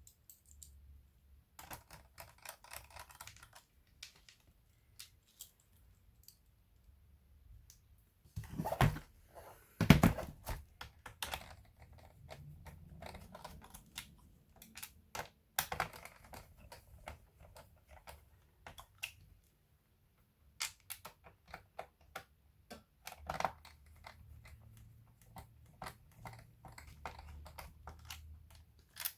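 Irregular small plastic clicks and taps from hands working on a laptop, with two louder knocks about nine and ten seconds in.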